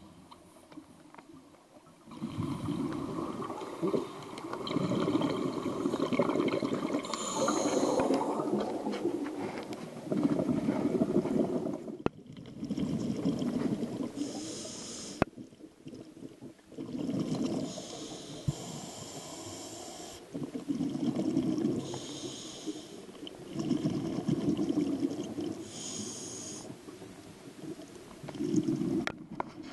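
A diver breathing through a full-face mask underwater, about one breath every three seconds: the hiss of each inhalation through the regulator, then the rumble and gurgle of exhaled bubbles.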